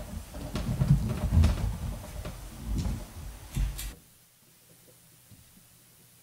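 Close bumps, knocks and rustling as the pastor steps down from the pulpit and moves to his seat, picked up on the sermon microphone. The handling noise cuts off suddenly about four seconds in, leaving only a faint low hum.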